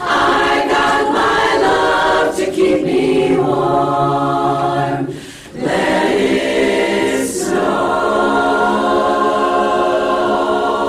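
Choir singing a cappella, holding long chords, with a brief break about five seconds in before a final chord is held.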